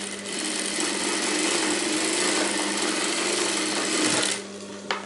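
Industrial lockstitch sewing machine running steadily while sewing a seam through fabric strips, stopping after about four seconds, with a single click just after.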